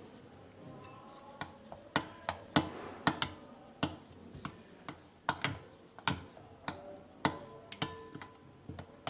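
A spoon knocking against a mixing bowl in a quick, irregular run of sharp clicks, about fifteen over nine seconds, while spiced gram-flour batter is stirred.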